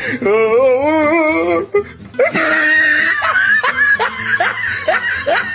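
A person laughing hard: first a long wavering squeal, then a run of short, rising, high-pitched laughs.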